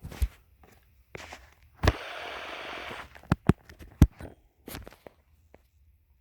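Cardboard packaging being handled: several sharp clicks and knocks, with a steady scraping slide lasting about a second near the middle.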